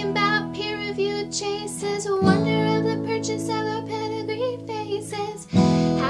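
A woman singing and accompanying herself on acoustic guitar. A strummed chord rings under the voice, struck again about two seconds in and once more near the end.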